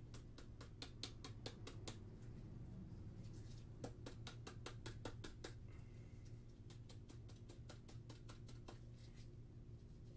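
Faint quick ticking and crinkling of thin plastic card sleeves and holders handled in gloved hands as trading cards are sleeved, in three spells, over a low steady hum.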